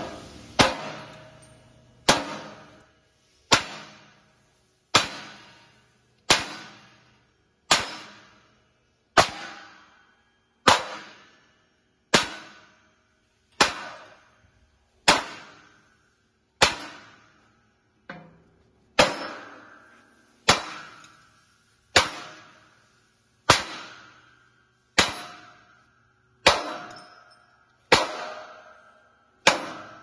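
Sledgehammer striking a 7/8" steel shear stud welded to a steel plate, about once every second and a half. Each blow is a sharp metallic clang that rings briefly. The stud bends further over with the blows in a 90-degree bend test of its weld.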